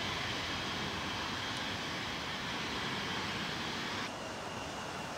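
Business jet's engines at takeoff power during the takeoff roll and climb-out: a steady jet noise. About four seconds in, the sound changes abruptly.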